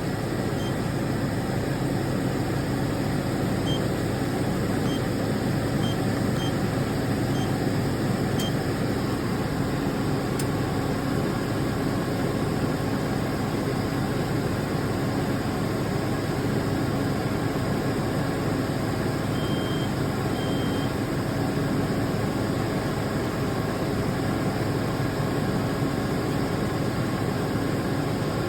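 Steady running hum of the van's engine and A/C system, while refrigerant is charged into the system. Short high electronic beeps sound several times in the first seconds and twice more about two-thirds of the way through, typical of an A/C charging machine's keypad and prompts.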